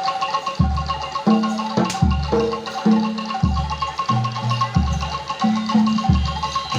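Javanese gamelan playing jaranan accompaniment. Deep gong-like strokes fall about every second, under mallet-struck metal keys and drums playing a fast repeating pattern.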